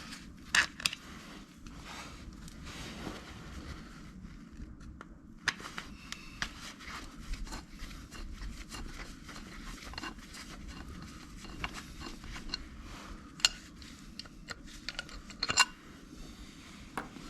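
Scattered clicks, taps and light scrapes of hand tools on metal screws and a cover on a small motorcycle, some sharp ones about half a second in, around 13 and 15.5 seconds, with quieter handling noise between.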